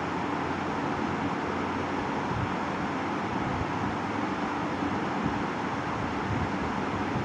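Steady background noise of a shop interior, an even rushing hiss and rumble with no distinct events.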